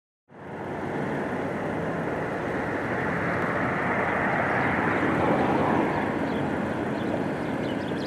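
Steady rushing outdoor noise that fades in just after the start. From about seven seconds in there are a few faint, short gull calls.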